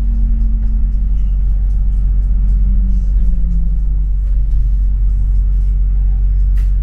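Bus running on the road, heard from inside the passenger cabin: a steady deep rumble of engine and road noise, with a drone that falls in pitch over the first four seconds.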